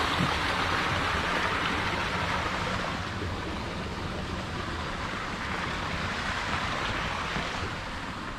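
Running water with a steady rushing hiss that slowly grows fainter.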